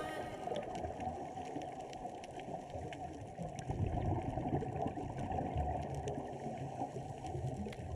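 Muffled underwater noise picked up through a camera's waterproof housing: a dull rushing murmur, with faint scattered clicks.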